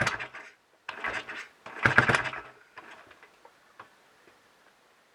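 Royal Enfield Bullet 500 single being kicked over against high compression, a clattery burst with each kick, about one a second, without the engine catching: the ignition timing is too retarded. Near the end only faint mechanical ticks remain.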